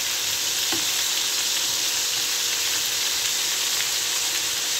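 Marinated chicken pieces sizzling steadily in a little hot oil in a frying pan as they brown to golden.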